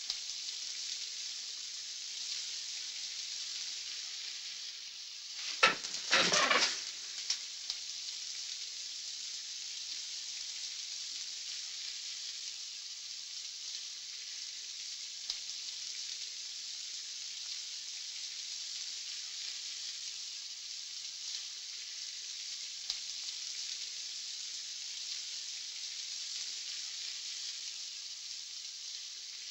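Steady hiss from an old film soundtrack, with a sharp click and a brief burst of noise about six seconds in.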